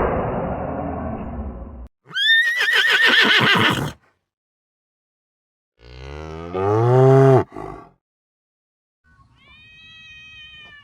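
A string of separate farm animal calls with silent gaps between them: a high, quavering horse whinny, then a lower drawn-out call that bends down at its end, then a faint high call near the end.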